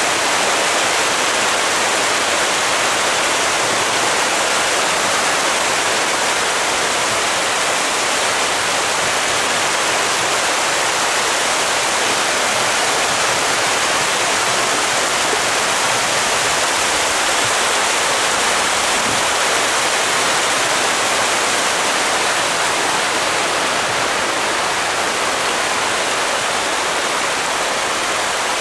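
Hundreds of striped catfish (pangasius) thrashing and splashing at the surface of a pond in a feeding frenzy as pellet feed is poured in: a loud, steady rush of splashing with no break.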